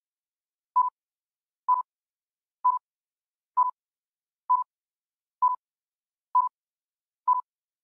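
Electronic countdown-timer beeps: a short beep of one steady pitch about once a second, nine in a row with silence between.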